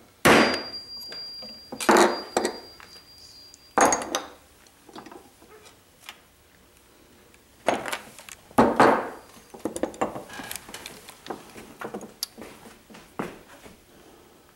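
Metal tools being handled on a workbench: a handful of sharp metallic knocks and clinks, the loudest about two seconds apart early on and a pair near the middle, followed by lighter clicks.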